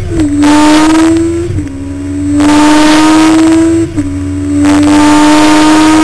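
Honda CBR1100XX Blackbird's inline-four under hard acceleration. The engine note climbs steadily in each gear and drops sharply at quick upshifts, about a quarter second, a second and a half and four seconds in. Loud wind rush on the microphone swells as the speed builds in each gear.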